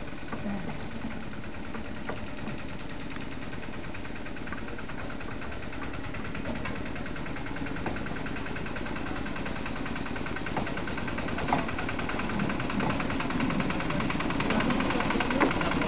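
Small Lister autotruck diesel locomotive (4wDM) running with a rapid, even chugging as it propels a coach in along narrow-gauge track, growing louder as it draws near, with a few clicks from the wheels and track near the end.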